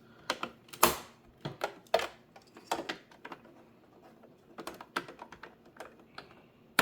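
Irregular clicks and knocks of a monitor stand being aligned and clipped back onto the back of the monitor, with a sharp knock a little under a second in and another right at the end.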